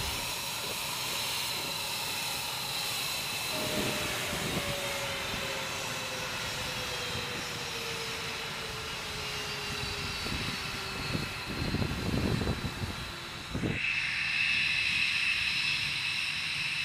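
Jet turbine whine from a parked F-22 Raptor: steady high-pitched tones over a hiss, with a lower tone slowly falling in pitch through the middle. About three-quarters through, the sound changes abruptly to a different, brighter whine.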